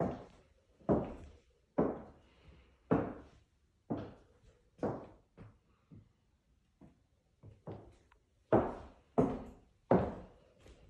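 Slow footsteps, about one step a second, each a sharp knock with a short ring-off; a few softer steps come around the middle and the heaviest near the end.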